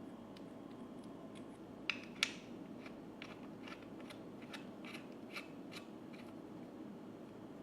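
A series of small, sharp clicks. Two louder ones come about two seconds in, followed by about a dozen lighter clicks at roughly three a second.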